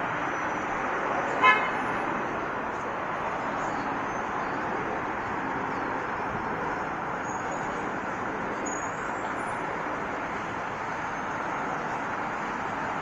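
Steady city traffic noise, with a single short car horn toot about a second and a half in.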